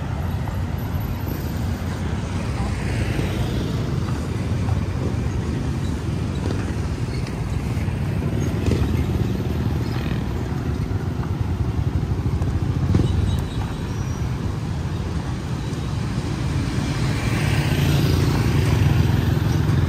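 Road traffic around a town roundabout: engines of passing vehicles running steadily, with one passing vehicle growing louder near the end.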